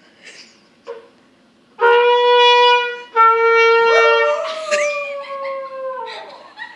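A trumpet plays two held notes of about a second each. A dog then howls along in one long howl that slides slowly down in pitch and fades.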